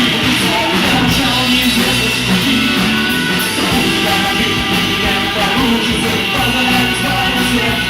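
Loud rock music: a band playing a rock song, dense and continuous throughout.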